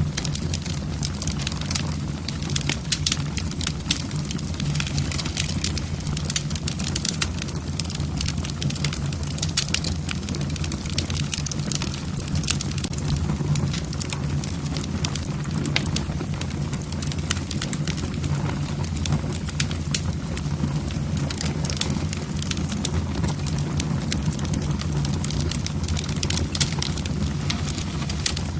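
Wood fire burning in a fireplace: a steady low rumble of flames with frequent, irregular crackles and pops from the burning logs.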